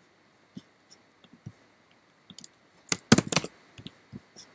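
Computer mouse and keyboard clicks: scattered light clicks, then a quick run of louder keystrokes about three seconds in.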